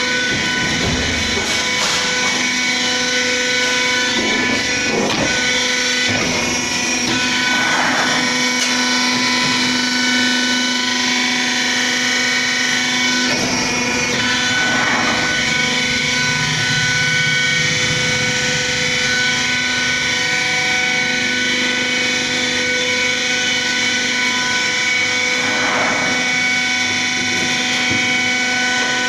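CNC sheet-metal bending machine running with a steady hum, with a few sharp metallic knocks from the steel sheet being worked.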